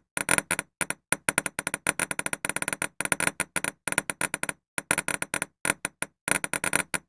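Geiger-counter-style clicking sound effect: rapid, irregular crackling clicks in bursts, broken by brief silent gaps, as the animated balls bounce.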